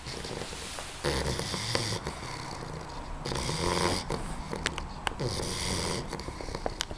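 English bulldog puppy snoring in her sleep: a run of raspy, buzzing breaths in and out, each about a second long, with a few small clicks in the second half.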